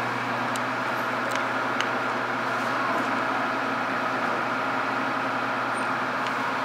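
A steady engine drone, with a low hum and a broad rushing noise over it that holds even throughout, and a few faint clicks.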